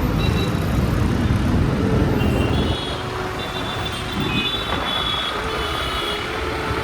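Motorcycle riding in city traffic: a steady rumble of engine, road and wind on the microphone, a little louder in the first few seconds. From about two seconds in, a run of short high beeps sounds over it.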